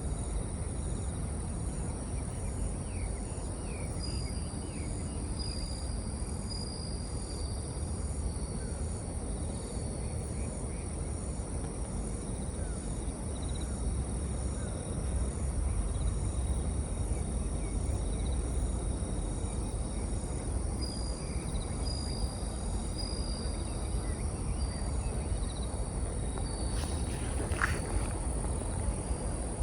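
Bell crickets (suzumushi) singing in trains of high, ringing chirps over a steady low rumble and hiss, the background boosted by raised gain. A brief sharp sound comes near the end.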